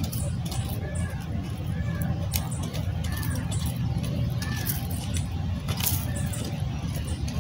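A stick scraping and poking through the ashes of a burnt-out campfire, with scattered light clicks and scrapes. Underneath runs a steady low rumble, and a short high chirp repeats about once a second.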